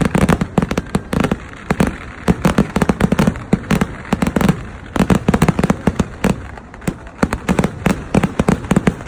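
Festival fireworks display: a rapid, continuous barrage of firecracker bangs, many per second, with short lulls between volleys.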